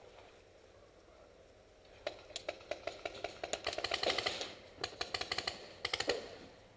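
Paintball markers firing rapid strings of sharp pops, several a second, in a few bursts. They start about two seconds in and stop just after six seconds.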